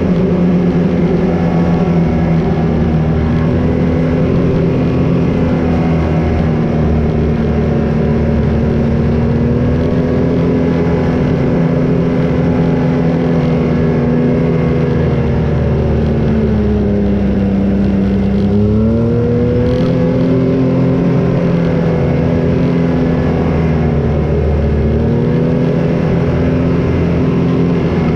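Can-Am Maverick X rc 1000's Rotax V-twin engine running at low, steady revs as the side-by-side drives along. Its note sags about two-thirds of the way through, then climbs again.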